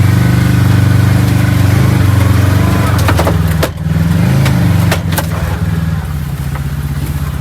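Kawasaki KRX 1000 side-by-side's engine running steadily at low revs on a trail. Its pitch dips and rises briefly about halfway through. A few sharp knocks come through in the middle.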